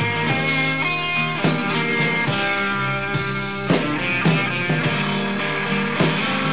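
Live rock band playing the instrumental intro of a song: acoustic and electric guitars sustaining chords and ringing notes, with a few sharp accents along the way.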